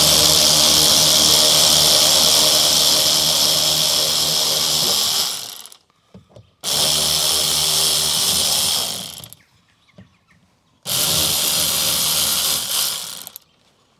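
Electric drill-driver running in three steady bursts of a few seconds each, backing out the screws that hold a car's rear door panel. Each run fades as it stops.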